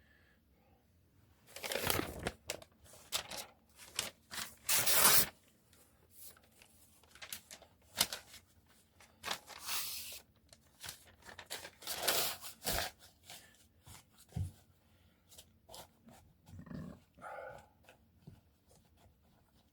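Newspaper being torn into strips by hand: a string of short, irregular rips with pauses between them.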